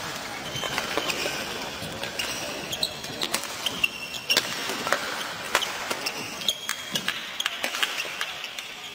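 Badminton rally: a run of sharp racket hits on the shuttlecock, about one every half second to a second, mixed with short high squeaks of the players' shoes on the court mat.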